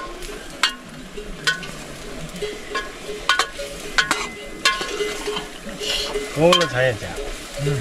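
Food frying and sizzling in a metal pan while a metal spoon stirs it, giving repeated sharp clinks and scrapes against the pan. A brief vocal sound near the end.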